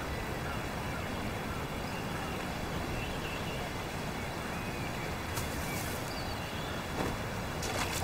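Steady outdoor background hiss with a few faint bird chirps, and a couple of brief rustles in the second half.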